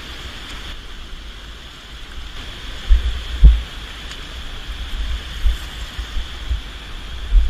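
A few dull, low thumps, the loudest about three and a half seconds in, over a steady high hiss.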